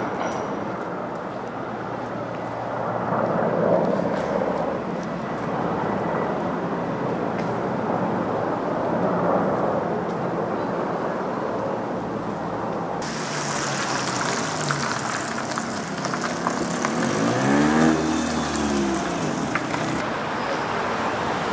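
City street traffic: a steady hum of cars with a couple of vehicles passing, and one car passing close and loud near the end.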